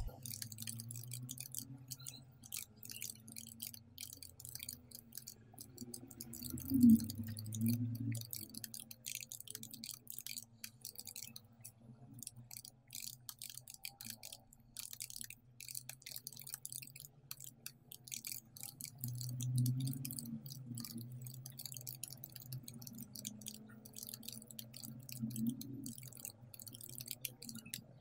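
Fast, continuous typing on a computer keyboard: faint keystrokes clicking many times a second, over a low steady hum.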